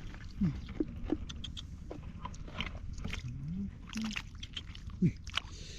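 Shallow water in a flooded rice field splashing and sloshing, with many scattered sharp splashes and a few short low sliding sounds.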